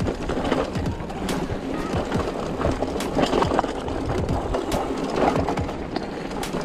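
Mountain bike rolling over a rocky trail: steady tyre and rattle noise, broken by several sharp knocks as the bike hits rocks.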